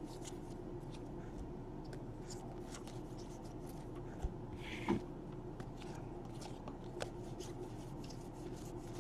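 Stack of 2017 Donruss baseball cards being flipped through and slid against one another in the hands: soft, scattered flicks and clicks, with a couple of sharper taps about four and five seconds in, over a faint steady hum.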